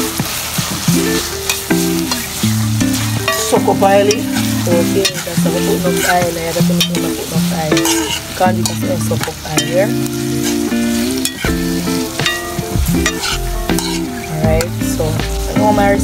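A metal spoon stirs and scrapes corned beef and cabbage in a hot pot, clicking against the pot again and again while the food sizzles.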